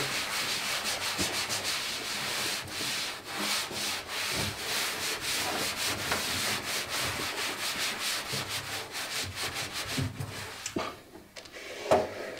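A cloth scrubbed hard, back and forth, over the floor inside a laser cutter's cabinet: a fast, rasping rubbing. It stops about ten seconds in, and a single sharp knock follows near the end.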